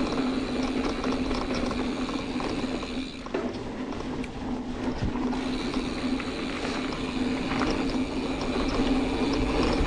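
Hardtail mountain bike coasting down a dirt trail: the rear freehub's pawls buzzing steadily under a constant rush of tyre and wind noise.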